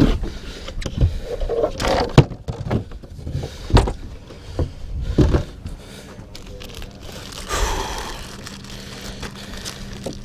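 Fishing gear knocking and scraping against a boat's deck and gunwale as it is handled, with about five sharp knocks over the first six seconds. A low steady hum comes in near the end.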